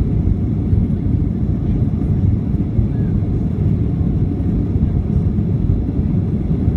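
Cabin noise of a Boeing 737-800 in its initial climb after takeoff: the steady low rumble of the CFM56 engines at climb power mixed with rushing airflow, heard inside the cabin over the wing.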